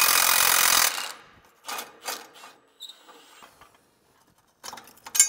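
Cordless impact wrench hammering as it runs a bolt out, stopping about a second in. A few light metal knocks follow, then a sharper metal clink near the end.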